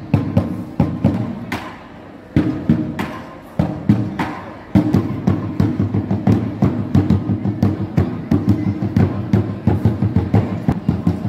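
Drum music: spaced, uneven drum strikes at first, then from about five seconds in a steady, fast drumbeat.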